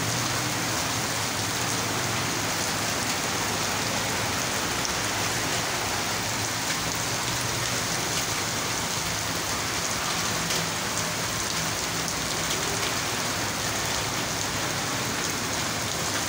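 Heavy rain falling steadily and splashing onto a wet, puddled street.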